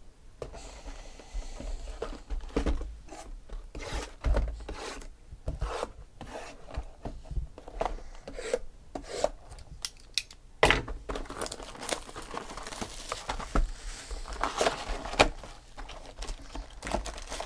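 A knife slitting the plastic shrink wrap on a sealed cardboard box of trading cards, then the wrap being peeled off and the box's lid opened: irregular scraping, crinkling and tearing with sharp clicks.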